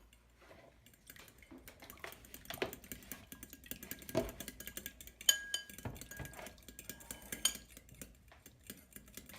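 Metal utensils clinking and scraping against dishes while the liquid for pie crust is mixed, with many small irregular knocks. From about five seconds in, a clear ringing note sounds, struck again several times.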